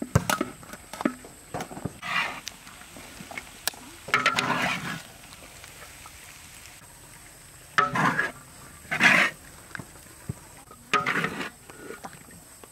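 Metal spatula and long-handled scoop scraping fried rice across a large wok, with a few sharp knocks at the start, then about five separate scrapes, each half a second to a second long.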